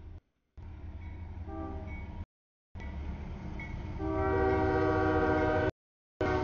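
CSX freight locomotive sounding its multi-chime air horn as it approaches a grade crossing, over the low rumble of the train. A short note comes about a second and a half in, then a long, loud blast from about four seconds. The sound drops out abruptly three times.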